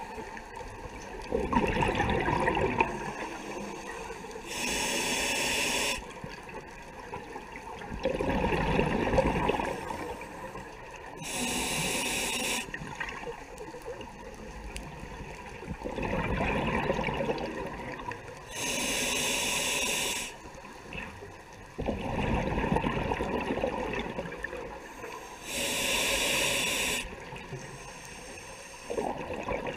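Scuba diver breathing through a regulator, heard underwater: a short hissing inhale and a longer bubbling exhale, about four breaths roughly seven seconds apart.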